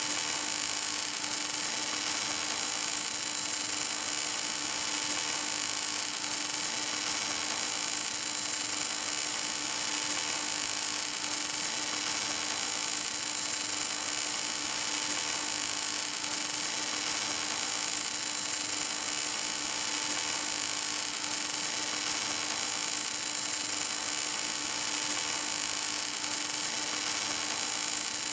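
Welding arc of an automatic pipe welding tractor laying a vertical seam on a steel pipe: a steady, even hiss with a constant hum underneath.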